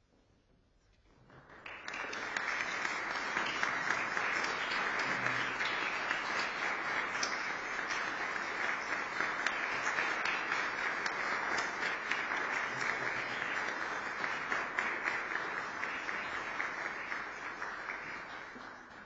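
Audience applauding in a concert hall. The clapping swells in about a second and a half in, holds steady, and dies away near the end.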